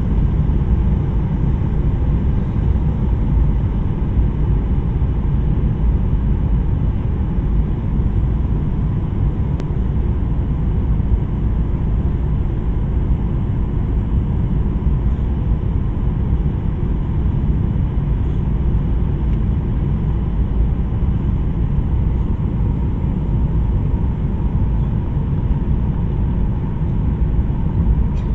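Steady cabin noise of a Boeing 737-900ER on its landing approach, heard inside the cabin beside the wing: CFM56-7B engine and airflow noise, mostly a deep unbroken rumble with a faint, thin, steady whine above it.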